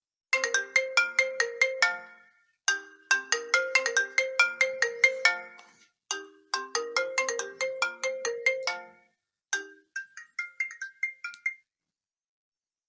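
iPhone SE ringtone for an incoming call, most likely the default one: quick, bright plucked notes in three phrases of about two seconds each, then a shorter, higher phrase before it stops.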